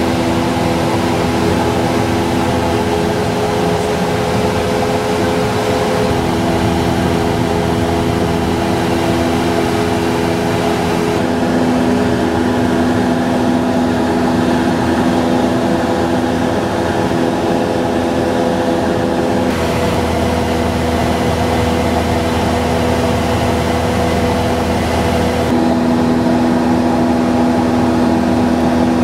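Cessna 172 Skyhawk's single piston engine and propeller running steadily in cruise, heard inside the cabin as a constant droning hum. Its tone shifts abruptly a few times.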